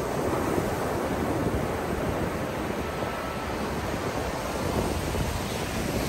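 Small waves breaking and washing up a sandy beach in a steady rush, with wind rumbling on the microphone.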